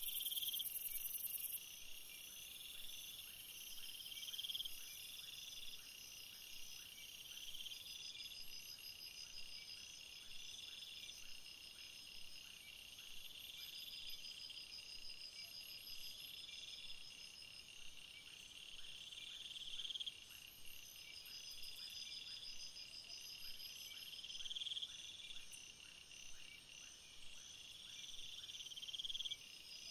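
Insects, cricket-like, chirping in a steady background chorus: short trills repeat about every two seconds over a continuous high chirring.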